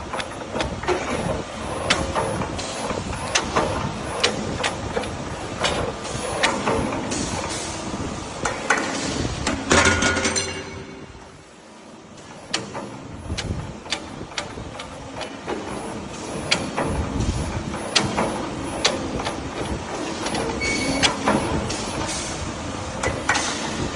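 Hydraulic CNC flat-strip bending machine running, a dense clatter of sharp clanks and clicks as metal strip is fed and formed into clamps. It quiets briefly about halfway through, then resumes.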